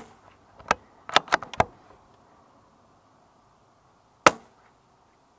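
CZ 457 bolt-action .22 rimfire rifle firing SK Rifle Match .22 LR: a few sharp metallic clicks about a second in as the bolt is worked, then a single shot near the end.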